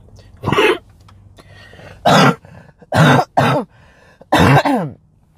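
A woman coughing and clearing her throat, about five short, loud coughs spread over a few seconds.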